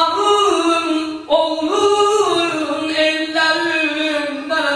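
A man's voice chanting a Muharram mourning elegy unaccompanied into a microphone, in long held notes that slide from one pitch to the next.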